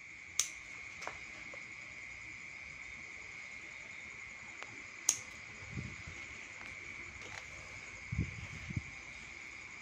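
Steady high trill of crickets. About half a second in and again about five seconds in there are sharp clicks, scissors snipping at the wire-mesh cage, and a few faint low knocks come near the end.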